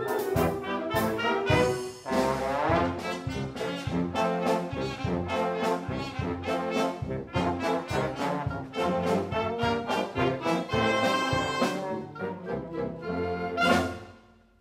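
Wind band playing, trumpets and trombones leading over regular drum beats, with a rising brass slide about two seconds in. The music ends on a loud accented chord near the end and then stops abruptly.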